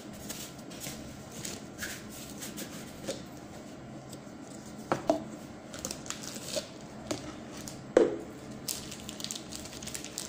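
Plastic packaging being handled and opened: rustling and crinkling with scattered small clicks, and two sharper knocks about five and eight seconds in.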